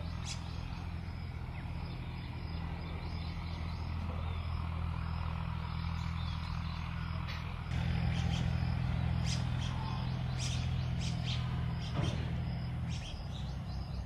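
Small birds chirping in short, scattered calls over a steady low rumble. The calls come more often in the second half, and the rumble gets louder about eight seconds in.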